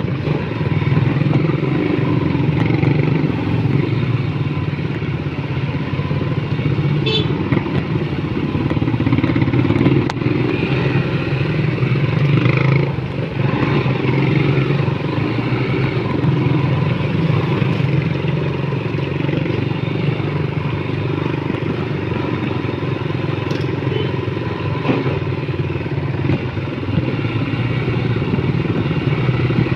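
Motorcycle engine running steadily while being ridden along a road, heard from on the bike, with a brief dip in level near the middle.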